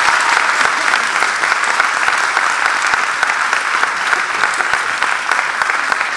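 Audience applauding: many hands clapping at once in a dense, steady wash, easing slightly near the end.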